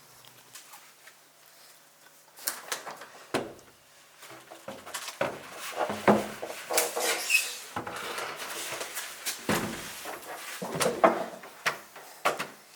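Irregular knocks, clicks and clatter, as of objects being handled and set down, starting about two and a half seconds in and coming in uneven clusters.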